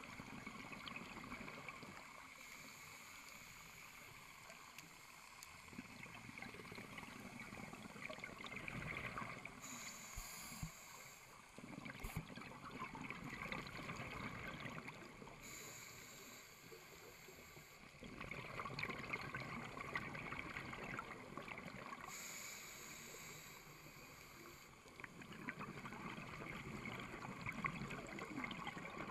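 Underwater noise from scuba divers' breathing: exhaled bubbles from their regulators gurgling and crackling, swelling in surges every several seconds with each breath, muffled through the camera's waterproof housing.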